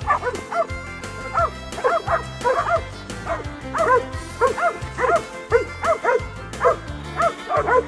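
Dogs yipping and barking in quick repeated short calls over a country song with a steady bass beat.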